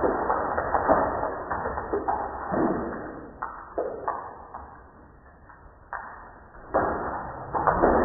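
Water splashing from cupped hands onto a face, in uneven noisy surges, dying down about halfway through and starting up again sharply near the end.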